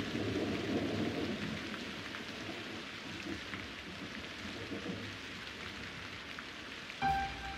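Steady rain falling, with a low rumble of thunder in the first second or so that fades away. A sustained musical note comes in near the end.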